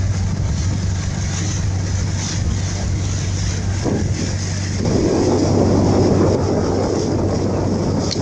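Steady low engine drone of a river launch under way, with a rushing of wind and water. About five seconds in the rushing grows louder.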